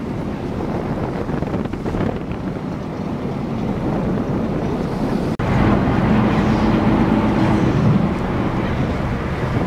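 Wind buffeting the microphone on a boat at sea, over the boat's engine. About halfway through the sound drops out for an instant, then comes back louder with a steady engine hum under the wind.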